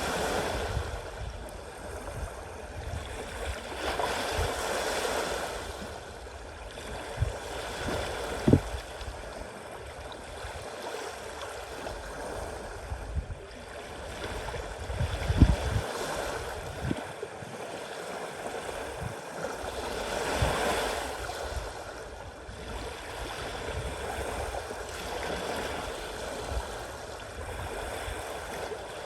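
Sea waves washing in and out, surging louder a few times, with a few short low thumps on the microphone.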